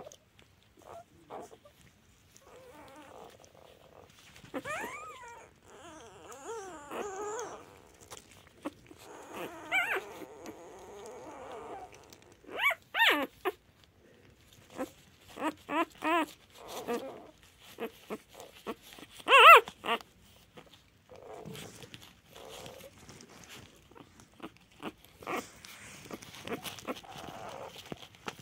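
Two-day-old newborn puppy, eyes not yet open, whimpering and squeaking in short pitched cries at irregular intervals, the loudest about two-thirds of the way through.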